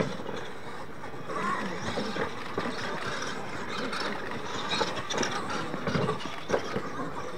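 Radio-controlled scale monster trucks racing over a dirt track: their motors and drivetrains whirring and their tyres scrabbling on the dirt, with a few sharp clunks in the second half.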